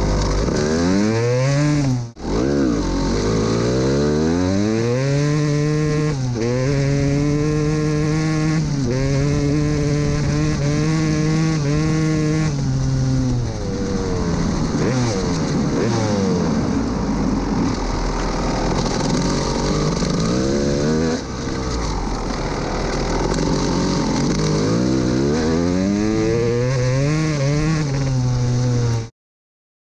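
Honda CR250 single-cylinder two-stroke motocross engine revving hard under way. Its pitch climbs and drops again and again as it runs up through the gears in the first dozen seconds, then holds lower through the middle and climbs again near the end. The sound cuts off suddenly just before the end.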